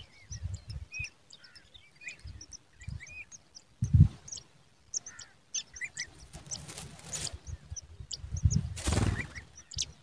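Pipit nestlings begging: many short, high chirps throughout, with low bumps and a rustle about nine seconds in.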